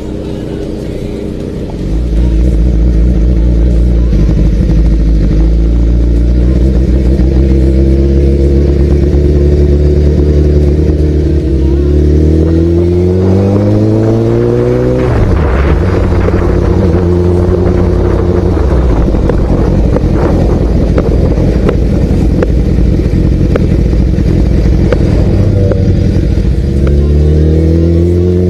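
A motor vehicle's engine running steadily and loudly, then revving up about twelve seconds in and dropping suddenly as it changes gear. It pulls up again near the end.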